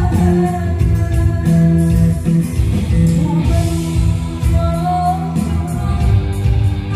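A live band playing through a large stage PA system: a woman singing over bass guitar, keyboard and drums.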